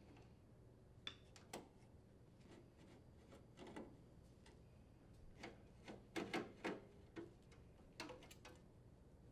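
Faint, irregular clicks and ticks of a Phillips screwdriver working screws out of a sheet-metal mounting bracket, with a small cluster of clicks about two thirds of the way through.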